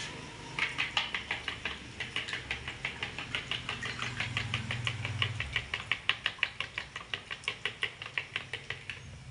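Metal spoon beating raw eggs in a bowl, clinking against the bowl in a fast, even rhythm of about six strokes a second.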